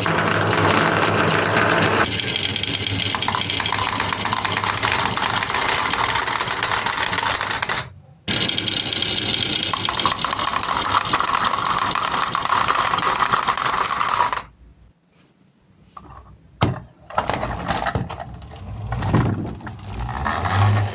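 Marbles rolling and clattering down a wooden HABA marble run, a dense continuous rattle that breaks off briefly about eight seconds in and stops at about fourteen seconds. Then a few scattered wooden knocks and clicks.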